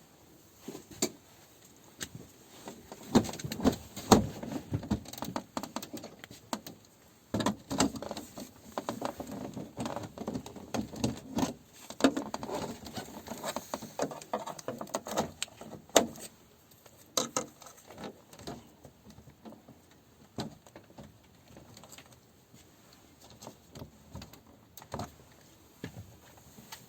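Irregular clicks, knocks and rustling from objects being handled by hand, busiest in the first two thirds and sparser near the end.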